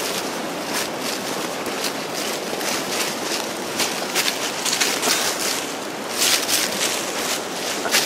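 Footsteps and the swishing of brush and leaves as a person pushes up a steep, overgrown slope. Many short crisp swishes and crackles sit over a steady rushing noise.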